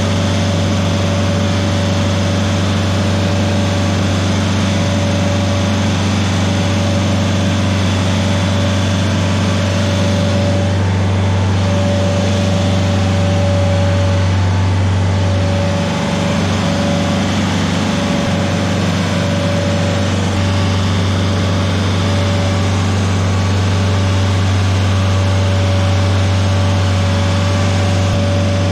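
Rayco RG50 stump grinder's engine running steadily as the machine is driven, with a thin steady whine over the low drone that breaks off briefly now and then.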